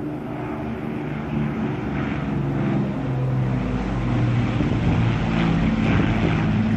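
Avro Lancaster bomber's four Rolls-Royce Merlin V12 piston engines droning in a low fly-past, growing steadily louder as the aircraft approaches.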